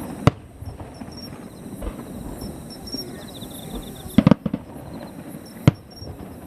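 Aerial fireworks bursting: a sharp bang just after the start, a quick cluster of bangs about four seconds in, and a single bang near the end.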